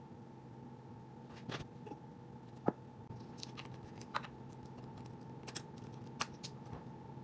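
About ten light clicks and taps at irregular intervals, the sharpest about a third of the way in, over a steady low hum.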